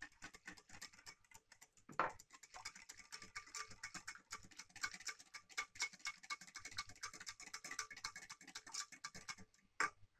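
Wire whisk beating a thin, runny yeast batter in a ceramic bowl: a rapid, continuous run of light clicks as the wires hit the bowl, with a sharper knock about two seconds in and another just before the end.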